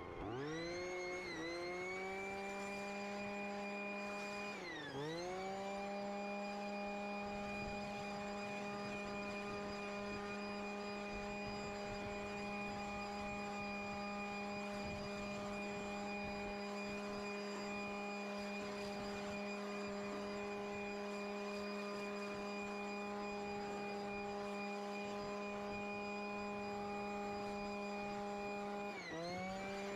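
Leaf blower spinning up with a rising whine, then running steadily at full speed, easing off briefly about five seconds in and again near the end.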